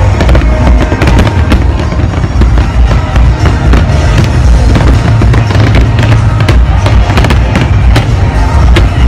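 Large aerial fireworks display: a dense, continuous barrage of overlapping bangs and crackles over a deep booming rumble, with music playing along.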